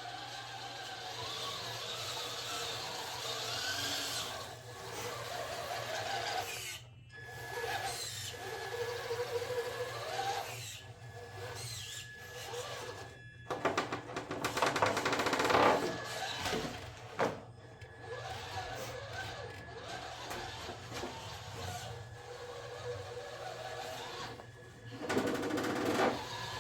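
Traxxas TRX-4 RC crawler's electric motor and drivetrain whining, its pitch rising and falling as the truck is driven on and off the throttle. About halfway through comes a louder stretch of rapid clicking, and another short loud burst comes near the end.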